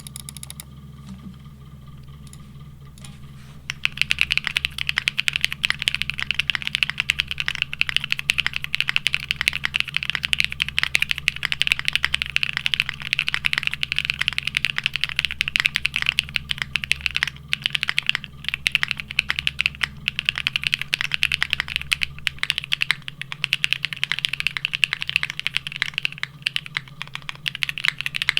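Rapid continuous typing on a Neo65 mechanical keyboard, mounted plateless and without foam, with ABS keycaps: a dense run of keystroke clacks that starts about four seconds in, after a low steady hum.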